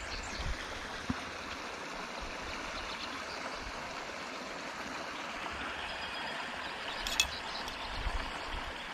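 Steady rush of water pouring from a drainage pipe into a creek, with one short sharp click about seven seconds in.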